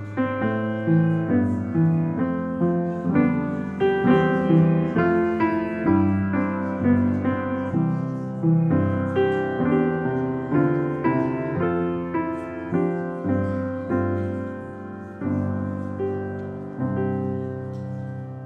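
Piano playing a slow piece, with chords struck about once a second, dying away near the end.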